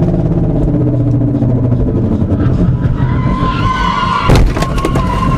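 Car cabin road and engine noise at highway speed, then a car horn held from about three seconds in as a pickup cuts in close, with a sharp loud knock about four seconds in.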